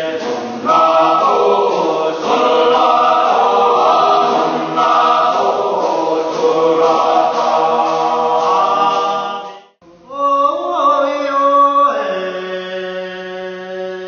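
Bunun men's chorus chanting unaccompanied in several voices at once. Just before ten seconds in, the singing breaks off and a slower chant of long, held overlapping notes begins.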